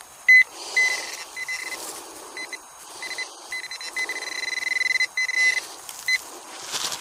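Metal detector beeping on a buried target in loose soil: short repeated beeps at one high pitch that run into a longer held tone near the middle, over the rustle of soil being handled. The target turns out to be a piece of lead.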